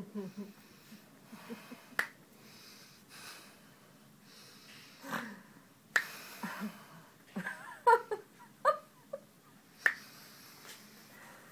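Three sharp snaps a few seconds apart, made by a masseur's grip as he pulls a person's fingers through it and lets them slip free in an anma finger-pulling technique.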